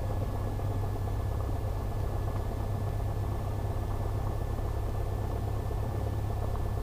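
Cessna 172's piston engine running steadily at low taxi power: an even low drone with a faint, steady high whine over it.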